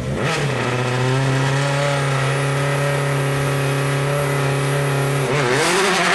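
Citroën C4 WRC rally car's turbocharged four-cylinder engine running at a steady, high idle. A little over five seconds in, the revs are blipped up and down as the car moves off.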